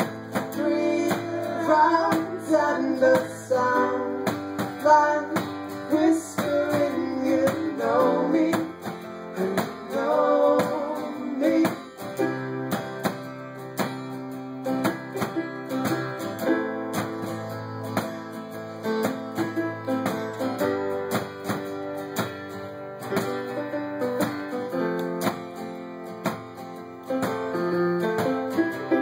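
Live acoustic guitar strumming with electric keyboard accompaniment; a male voice sings a melody over roughly the first ten seconds, then the song carries on as an instrumental passage.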